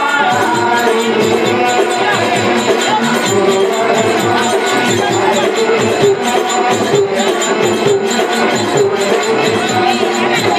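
Live folk-theatre dance music: tabla and hand drum playing a quick, steady rhythm under a held melody line, with jingling percussion on top.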